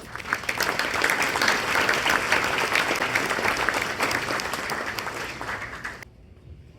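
Audience applauding, a dense patter of many hands clapping that begins at once, holds for about six seconds and stops abruptly.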